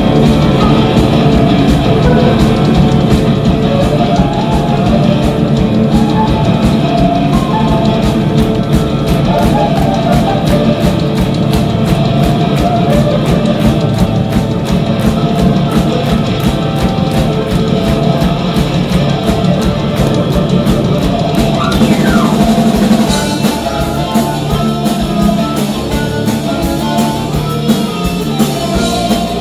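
Live heavy psychedelic rock band playing at full volume: pounding drum kit, electric bass and electric guitars. Near the end a falling glide cuts through, and the band eases into a lighter groove.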